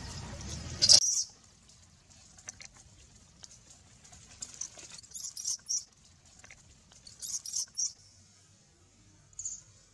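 A newborn macaque squeaking in short high-pitched bursts, a few in quick succession, twice and then once more near the end. Before that, a loud rustling noise in the first second cuts off suddenly.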